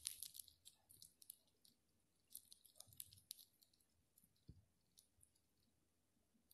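Near silence with faint, scattered clicks, a few more of them in the first second or so, and one soft thump about four and a half seconds in.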